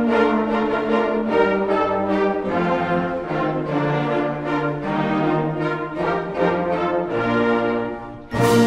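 Full orchestra of strings, woodwinds and brass playing sustained chords. The sound thins out briefly near the end, then the whole ensemble comes back in loudly.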